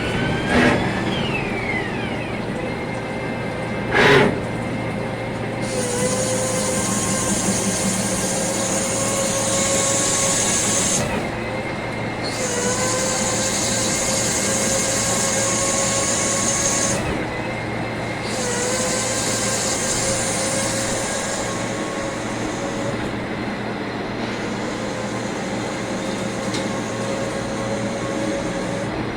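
CNC lathe running through a machining cycle: a steady machine hum with whining tones that dip and shift about every six seconds, and a high hiss that switches on and off in blocks. Two sharp knocks come in the first four seconds.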